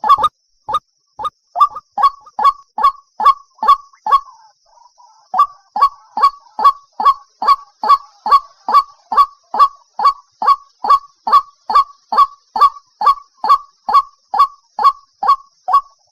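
White-breasted waterhen (dahuk) calling: a steady series of loud, harsh calls, about two a second, each sliding down in pitch, with a short break about four seconds in.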